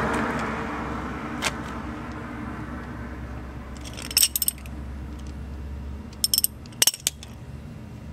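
Small metallic clinks from hand tools being handled at the wheel well: a quick cluster of clicks about four seconds in, another about six seconds in, then a sharper metal knock just before seven seconds.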